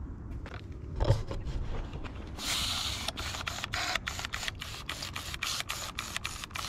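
Hand trigger spray bottle pumped rapidly, spraying degreaser onto a small engine: a short hiss of spray, then quick squirts about four a second. A thump about a second in.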